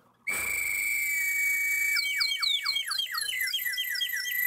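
Two handheld bird calls blown together: a steady high whistle, joined about two seconds in by a run of quick falling chirps, about four a second, over the held tone.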